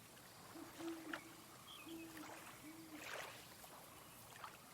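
Faint lake ambience: water gently lapping and trickling, with a few small splashes and three short, low, steady calls in the first three seconds.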